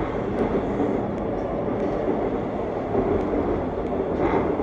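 Seoul Subway Line 2 electric train running on its track, a steady rumble of wheels on rail and running gear heard from inside the car. A short sharper noise rises briefly near the end.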